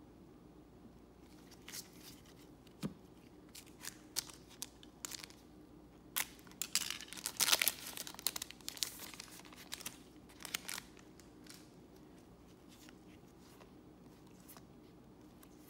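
A trading-card pack's foil wrapper being torn open and crinkled, in a dense rustle loudest about halfway through. Scattered light clicks and rustles of cards being handled come before and after, and the last few seconds are quiet.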